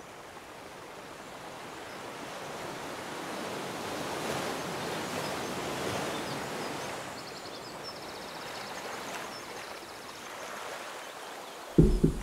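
A rush of noise that swells and eases like waves washing onto a shore, with faint bird chirps. Near the end a plate is set down on a wooden table with a short dull thud.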